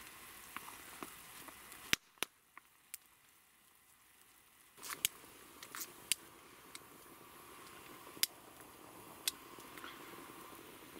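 Wood campfire crackling: scattered sharp pops over a faint steady hiss.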